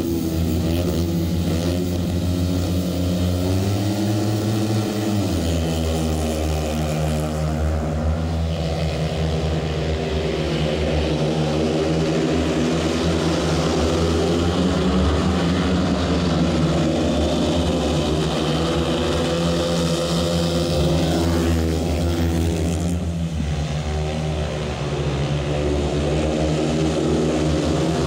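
Several 500cc single-cylinder methanol speedway bikes racing together at full throttle. Their engines rise and fall in pitch as the riders ease off and open up again through the bends.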